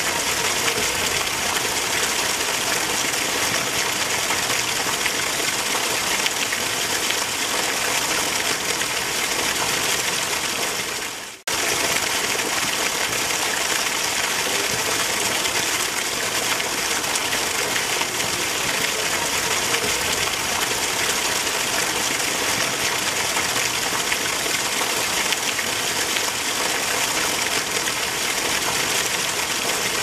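Steady rain falling, an even dense hiss. About eleven seconds in it briefly fades away and then cuts straight back in.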